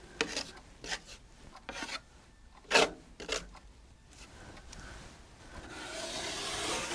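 Drywall knife scraping over FibaFuse drywall tape and joint compound on a wall seam. There are several short strokes, the loudest about three seconds in, and then a longer drawn-out scrape near the end.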